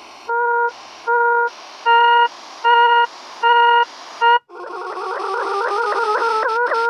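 Synthesized tones from the Desmos graphing calculator: a steady pitched tone beeps on and off about six times, with a hiss between the beeps. About four and a half seconds in, a dense cluster of several tones over hiss takes over, slowly rising in pitch.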